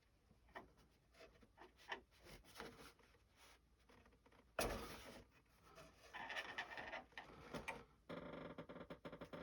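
Faint workbench handling: small clicks and taps of model parts and tools, one sharper knock about halfway through, some scraping, and a faint steady hum starting near the end.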